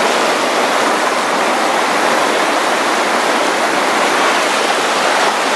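A shallow mountain creek rushing over stones: a loud, steady wash of water.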